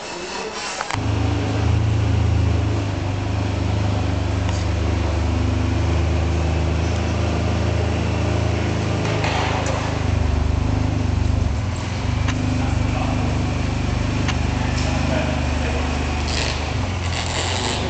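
Ferrari 612 Scaglietti's V12 engine starts about a second in and settles into a steady, deep idle, running on as the car is driven slowly out of the workshop bay.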